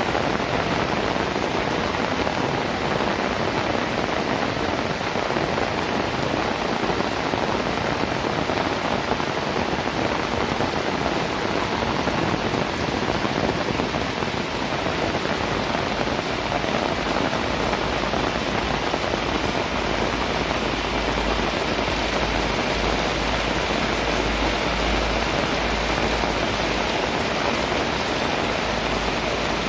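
Heavy rain falling steadily, a dense even hiss without a break.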